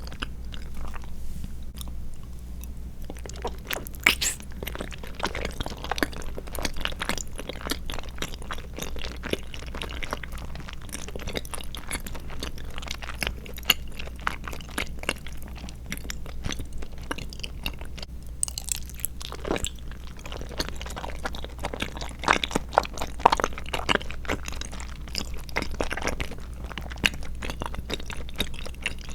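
Close-miked chewing of tapioca pearls and milk jelly: a steady run of small mouth clicks, with a few louder ones here and there.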